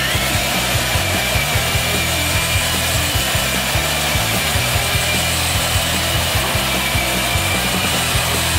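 Sunnen CH-100 line hone running, its mandrel turning fine honing stones against the main bearing bores of a Mopar 440 big-block. It makes a steady grinding rasp with a thin, steady high whine.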